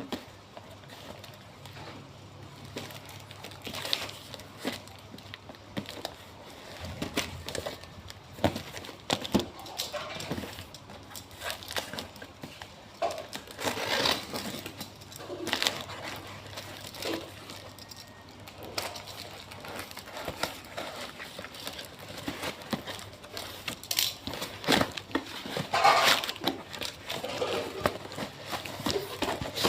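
Packaging being handled and opened: irregular crinkling and rustling with scattered clicks and knocks, some louder clusters partway through and near the end.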